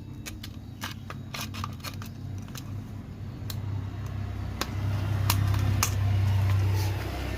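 Washing machine's wash motor humming steadily without turning, the hum swelling about four and a half seconds in, with scattered sharp clicks and knocks throughout. The hum with no spin means power is reaching the motor but it will not start.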